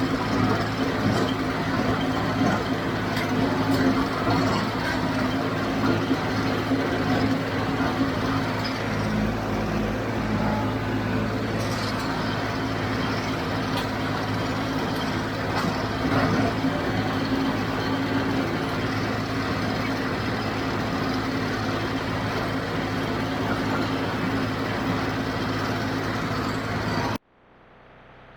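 John Deere 5055D tractor's three-cylinder diesel running steadily under load, driving a JD 348 square baler, with a few short knocks from the baler. The sound drops away suddenly near the end.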